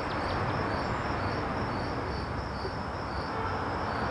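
Steady outdoor background hum with a high, short chirp repeating evenly about three times a second, like an insect's stridulation.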